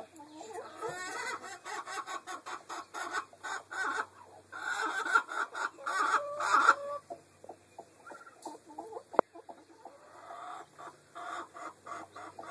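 Chicken hens clucking in short repeated calls, with a louder run of calls about halfway through and one sharp click a few seconds later.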